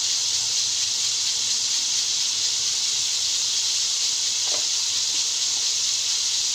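Masala of onion, ginger-garlic-tomato paste and spices sizzling steadily in oil in a cooking pot as it is fried down.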